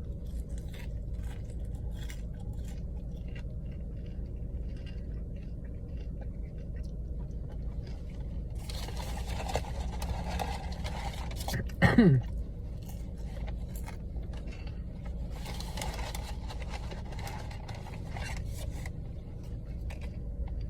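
Eating sounds: small wet clicks of chewing, with two stretches of food-wrapper rustling, over a steady low hum. About twelve seconds in, a short, loud sound sweeps down in pitch.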